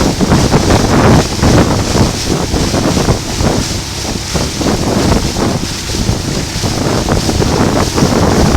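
Wind buffeting the microphone aboard a moving motorboat, with the rush of water along the hull. The noise is loud and continuous, with irregular gusty thumps.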